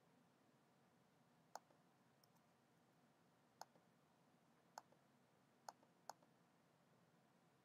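Five sharp clicks of a computer's pointer button over near silence, spaced unevenly, the last two less than half a second apart. These are the clicks of right-clicking and picking items from an on-screen menu.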